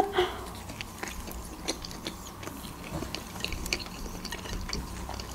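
Close-miked chewing of hot dogs in soft buns: small wet clicks and squishes of two mouths eating, irregular and faint.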